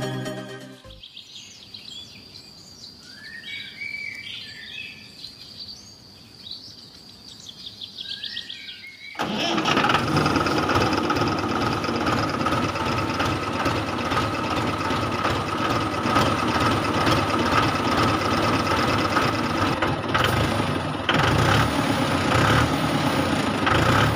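Faint bird chirps over a quiet background. About nine seconds in, a loud steady whirring with a whine starts suddenly and runs on: the small electric motor of a homemade miniature toy tractor.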